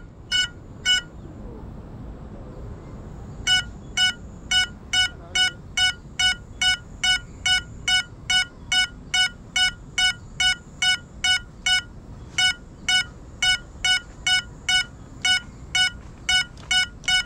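Lost-model beeper of a crashed GEPRC CineLog 35 FPV drone sounding short, identical high-pitched beeps, about two a second with a brief pause, as it lies downed in bamboo. A faint steady high electronic whine runs underneath.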